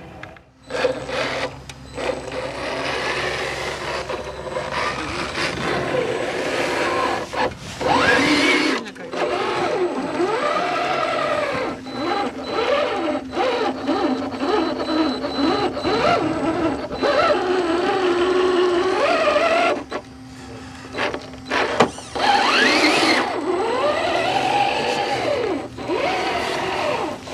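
Electric drive motors and gearboxes of 1/10-scale RC crawler trucks whining as they climb, the pitch rising and falling over and over as the throttle is worked. It drops away briefly about two-thirds of the way through.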